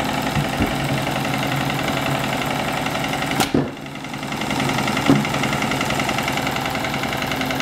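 Small homemade two-cylinder double-acting steam engine running fast with a rapid, even chuffing clatter, driving a small DC motor as a generator. The sound dips briefly about three and a half seconds in, with a short knock on either side, then returns to the same steady running.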